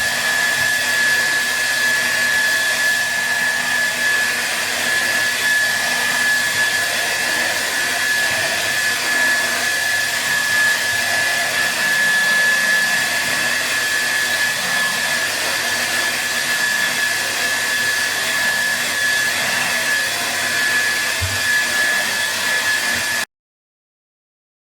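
Hair dryer running steadily, its rush of air carrying a steady high whine. It cuts off suddenly near the end.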